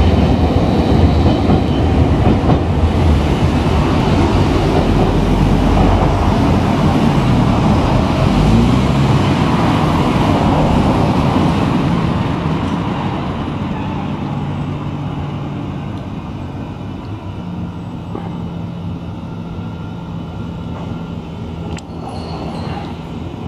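Streetcar running on street track, loud for roughly the first twelve seconds. After that the sound drops to quieter street traffic with a steady low hum.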